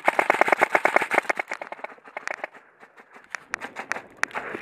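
Airsoft rifle fire: a rapid full-auto string of sharp clicking shots for about the first second and a half, then scattered single shots and clicks.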